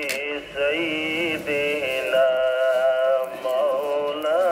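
Background song: a singing voice holding long notes that bend and waver, over music.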